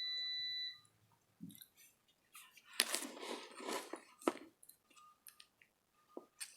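Air fryer beeping: a steady high electronic tone that cuts off about a second in. After it come soft chewing and crunching sounds of eating.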